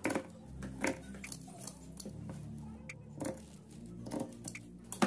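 Scissors snipping through cancan net: a series of about eight separate, crisp cuts at an uneven pace.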